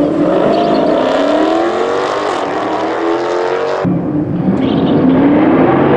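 Dodge Challenger and Mercedes-AMG GT engines revving at a drag strip start line, the pitch climbing. The sound breaks off abruptly a little before four seconds in and picks up again with the engines still revving.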